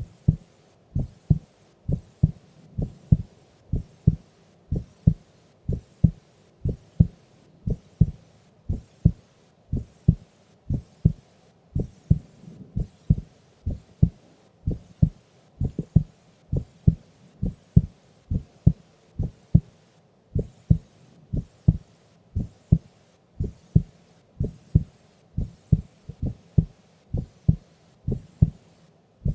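A sleeping woman's heartbeat, slow and steady at about one beat a second, each beat a double thump (lub-dub).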